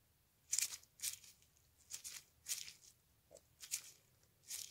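Needle-nose pliers pinching and squeezing a plastic pen-ink tube, giving about half a dozen faint, short crinkling scrapes with pauses between.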